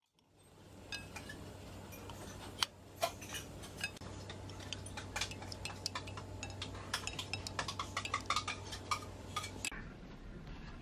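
China plates and metal cutlery and serving tongs clinking and clattering at a buffet, many small sharp clinks, over a steady low hum that stops near the end.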